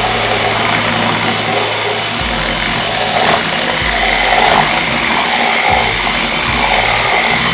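Kawasaki variable-speed angle grinder with a sanding pad wet-sanding a concrete countertop: a steady high motor whine over a gritty grinding noise, like a dentist's drill filling a cavity.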